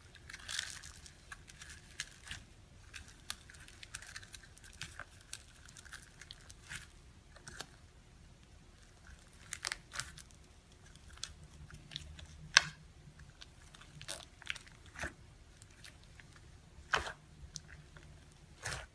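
Slime being worked by hand, giving irregular crackling clicks and pops, with a few sharper snaps about halfway through and near the end.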